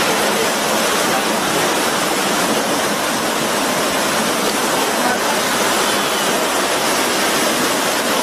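Steady rush of water from a small waterfall pouring into a shallow river.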